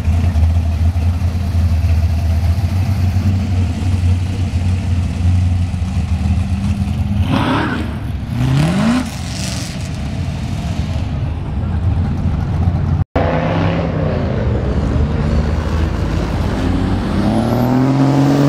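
Loud car exhausts: a deep, steady engine rumble for several seconds, then engines revving up in rising sweeps as cars accelerate away. After a sudden cut about 13 seconds in, another vehicle revs up as it accelerates past near the end.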